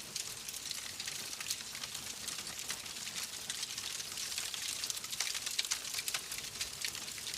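Wood fire crackling in a fireplace: a dense patter of small pops and snaps over a steady hiss.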